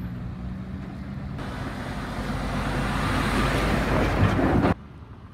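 Road traffic: a vehicle's engine hums steadily, then a heavy truck passes close by, its engine and tyre noise swelling to a peak before cutting off abruptly near the end.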